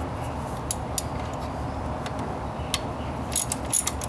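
Hand wrench working the distributor's retaining (timing) bolt loose: a few scattered metallic clicks, then a quicker run of clicks near the end, over steady background noise. The bolt is tight to begin with.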